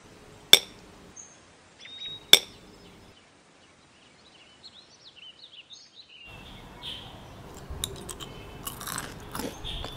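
Two sharp clicks with a short ring, about half a second and two seconds in: pieces of hard sugar candy (kohakutou) set down on a slate board. Faint bird chirps follow. From about two-thirds of the way in there is crunchy chewing of the candy, whose sugar crust crackles as it is bitten.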